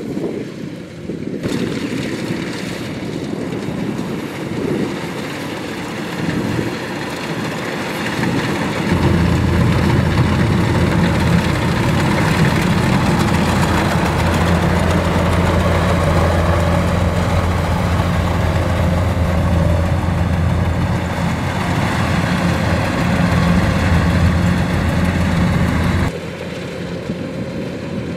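Kubota DC-105X combine harvester running as it cuts rice: a steady diesel engine drone with the machinery's noise over it. It gets louder, with a stronger low hum, from about a third of the way in, then drops back near the end.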